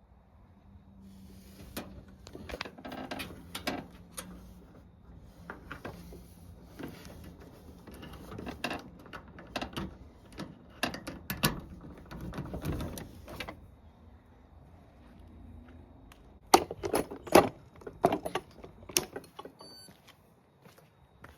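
Irregular metallic rattling, knocking and clattering from a Lamona LAM8775 washing machine, with a faint steady hum under the first few seconds and a run of louder clanks near the end.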